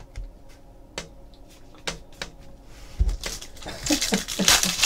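Trading cards being handled: a few sharp clicks as cards are flipped through the stack, then from about three seconds in the crinkle and tear of a foil card pack wrapper being pulled open.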